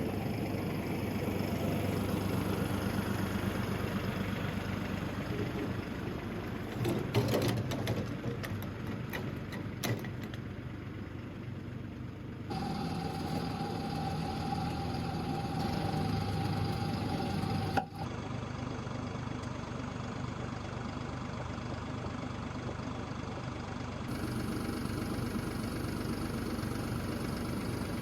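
Tractor engine running steadily, with a few sharp clanks about seven to ten seconds in and a steady high tone held for about five seconds midway.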